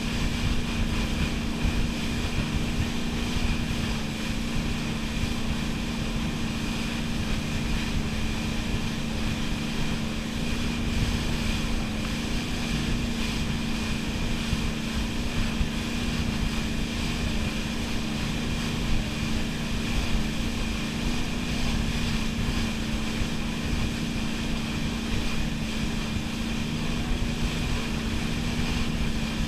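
Wake boat's inboard engine running steadily at speed while towing a tube, a constant drone with one strong steady tone, over the rush of the wake and wind on the microphone.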